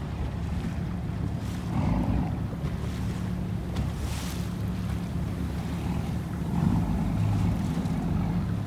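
Steady low drone of a boat engine, with wind buffeting the microphone and swelling in gusts about two seconds in and again near the end, over the wash of water.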